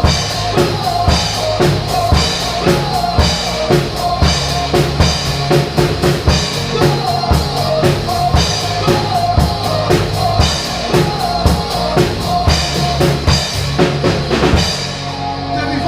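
Drum kit played along to a recorded worship song: a steady groove of bass drum and snare strokes with cymbals over the backing music. The drumming stops about fifteen seconds in, leaving the song playing on its own.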